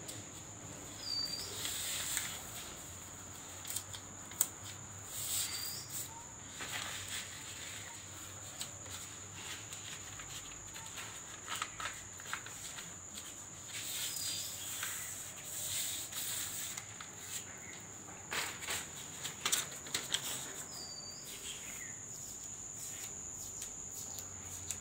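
Newspaper sheets rustling and crinkling in short, irregular bursts as they are handled and pressed along a door frame to mask it, over a steady high-pitched whine.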